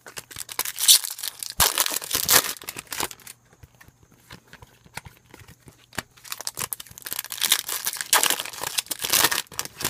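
Foil wrapper of a Topps Chrome baseball card pack crinkling and tearing as the pack is opened and the cards are handled, in two bouts of rustling.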